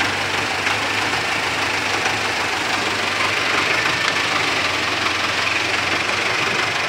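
Farm tractor's diesel engine running steadily under load as it pulls a loaded trailer through a river.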